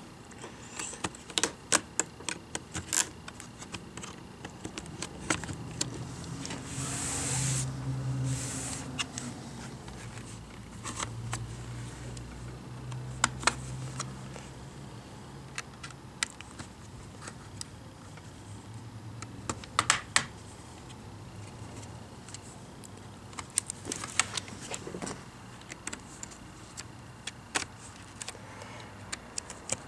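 Plastic retaining clips of an HP Chromebook 14 G4 keyboard deck clicking and popping loose as a hobby knife pries along the seam: scattered sharp clicks in small clusters, the sign that the keyboard assembly is coming up. A short rustle about seven seconds in.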